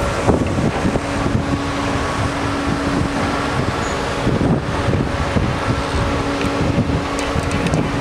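Construction machinery engines and street traffic running steadily, with a constant engine hum.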